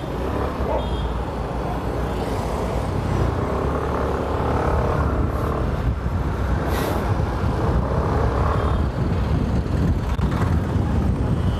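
Motor scooter's engine and road noise while riding through town traffic. It grows louder over the first few seconds as the scooter pulls away and gathers speed, then holds steady.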